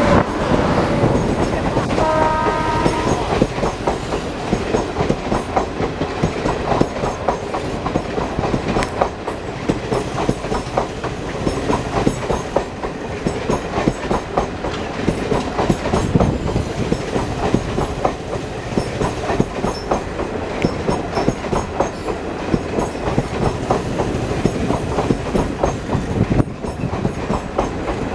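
Electric-hauled passenger train coaches passing at close range: a steady rumble with rapid clickety-clack of wheels over rail joints. A short horn-like note sounds about two seconds in.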